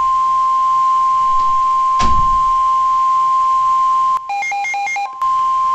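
NOAA Weather Radio warning alarm tone: one steady, loud single-pitch tone heralding a severe thunderstorm warning. About two seconds in there is a single thump, and around four seconds in the tone breaks off for about a second while a quick stepping two-pitch electronic warble plays, then the steady tone resumes.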